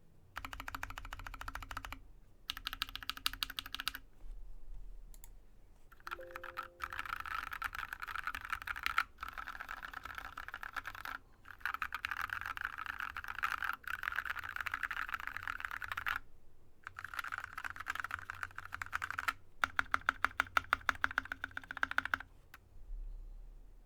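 Typing on a Drop ALT low-profile mechanical keyboard with lubed Yok Polar Panda linear switches. The keystrokes come in fast runs broken by short pauses, and the typing stops shortly before the end.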